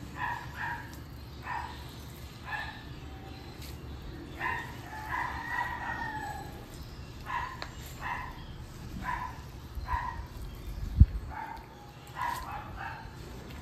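A dog barking repeatedly in short barks, singly and in pairs, and a rooster crowing once a few seconds in. A dull thump near the end.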